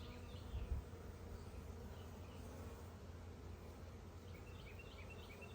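Honeybees buzzing as a steady low hum around an open hive, the colony somewhat agitated. A couple of low knocks come under a second in.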